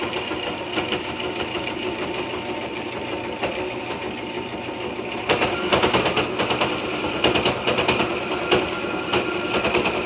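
Electric sewing machine running steadily, stitching a fabric strap onto a cloth face mask. About five seconds in it gets louder, with a sharper, rapid clatter of the stitching.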